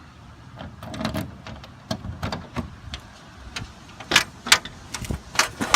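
Scattered clicks and knocks of a newly installed lock and its compartment door being worked, with a few sharp, louder clacks near the end.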